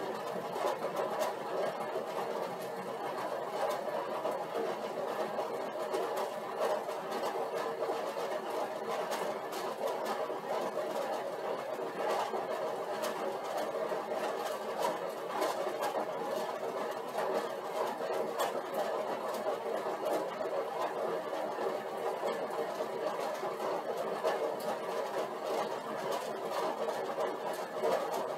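Stationary exercise bike whirring steadily as it is pedalled at a constant 100-watt warm-up load.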